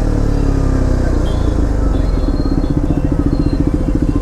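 KTM Duke 390's single-cylinder engine running through a loud full-system aftermarket exhaust while riding. The exhaust note dips slightly, then holds steady with a rapid, even pulsing beat in the second half.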